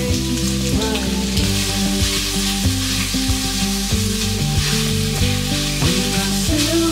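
Meat strips sizzling and frying in a hot enamelled cast-iron Staub braiser sauté pan as they are stirred with a spatula, over background music.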